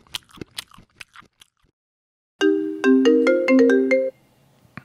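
An internet call's ringing tone: a short melody of quick electronic notes lasting under two seconds, after a few scattered clicks at the start die away.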